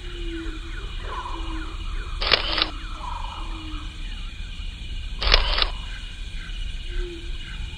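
Camera shutter clicks, two of them about three seconds apart, over a continuous background track of steady high insect-like tones and short gliding animal-like calls.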